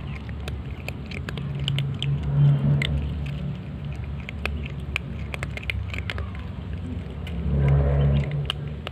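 Cats crunching dry kibble: a string of short, irregular crunches, over a steady low rumble that swells about two and a half seconds in and again near the end.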